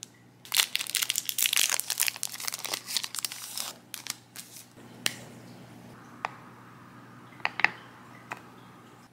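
A KitKat chocolate bar's wrapper crinkling and tearing as it is opened and peeled off, for about three seconds. A few light, separate clicks and taps follow.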